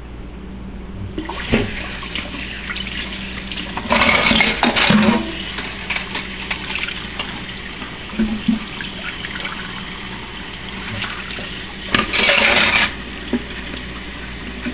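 Water running from a kitchen tap into a sink, starting about a second in. Louder splashing comes about four seconds in and again near the end, as someone rinses at the sink.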